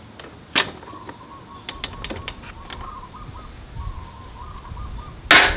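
Sharp knocks and clicks, one about half a second in and the loudest near the end, with a few lighter ticks between, over a faint warbling high tone that keeps repeating.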